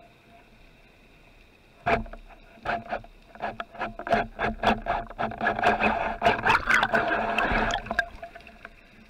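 Band-powered speargun fired underwater: a single sharp crack about two seconds in, followed by a rapid run of sharp clicks and knocks, several a second, that stops about a second before the end.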